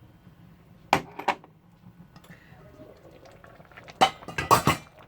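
Serving utensil knocking and clinking against a cooking pot as stew is scooped out: two sharp knocks about a second in, then a quick run of clinks near the end.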